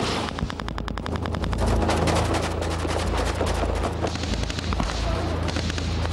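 Automatic gunfire: a rapid run of shots in the first couple of seconds, then more scattered firing, over a low steady drone.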